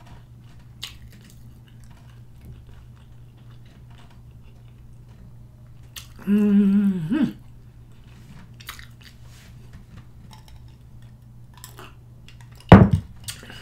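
Close-up mouth sounds of a person chewing hard-boiled egg, soft wet clicks over a steady low hum. About six seconds in comes a hummed "mmm" of about a second, and near the end a sudden loud sound as she drinks from a glass of ice water.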